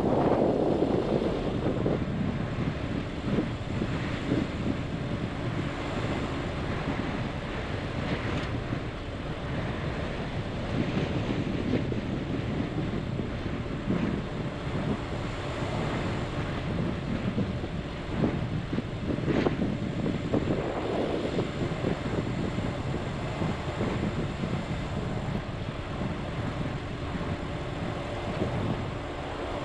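Vehicle driving on a dirt road in strong wind: a steady rumble of engine and tyres mixed with wind buffeting, swelling louder near the start and again about twenty seconds in.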